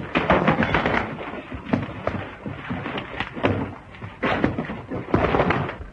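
Two men fighting at close quarters: a scuffle of repeated, irregular thumps and knocks.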